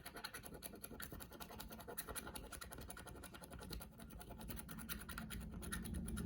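A stylus scratching the black coating off rainbow scratch paper in rapid, short back-and-forth strokes, filling in a shape. The scratching is faint.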